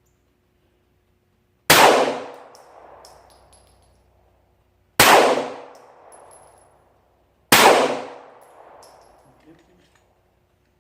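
Three 9mm pistol shots from a Glock 19 Gen4, the second about three seconds after the first and the third about two and a half seconds later. Each is followed by an echo that fades over a second or two, with faint metallic clinks.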